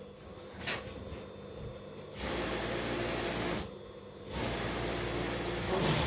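Sewing machine stitching in two short runs, each about a second and a half, with a brief pause between.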